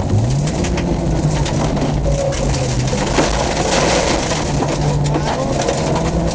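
Rally car's engine running hard, heard from inside the cabin as the car drives over a rough dirt track; its pitch drops and climbs back right at the start, as at a gear change, then holds fairly steady. Short clicks and rattles from the car and the track run through it.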